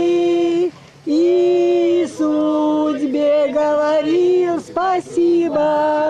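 A group of women and men singing a song together, unaccompanied, in long held notes. There is a short break between lines just under a second in.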